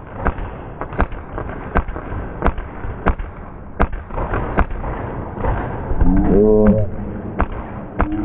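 Airsoft guns firing single shots: a string of sharp cracks at uneven spacing, roughly one every half-second to second. A short shout rises and falls about six seconds in.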